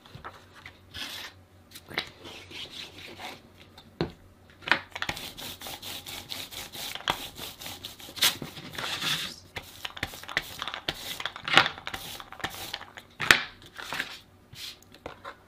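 Glue brush rubbing quickly back and forth over craft paper as glue is spread, in rapid scratchy strokes, after a few seconds of paper rustling.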